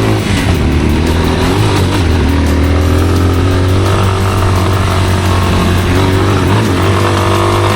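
Off-road motorcycle engine running steadily, its pitch wavering a little with the throttle.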